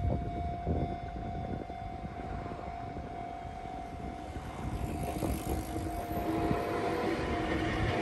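Railway level-crossing warning signal ringing steadily while an Enoden electric train approaches. The train's rumble grows louder over the last few seconds as it reaches the crossing.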